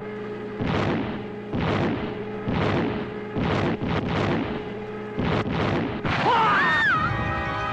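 Cartoon bomb explosions going off in quick succession, about eight booms roughly a second apart, over a steady low hum. Near the end a sliding, whistle-like tone leads into music with long held notes.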